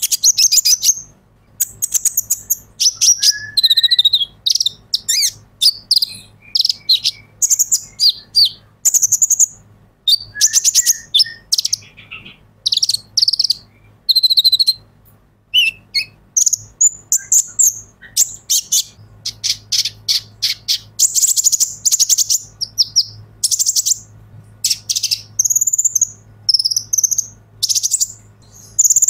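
Male kolibri ninja sunbird (purple-throated sunbird) in full song: a fast, unbroken run of high, sharp chirps and twittering trills in quick short bursts.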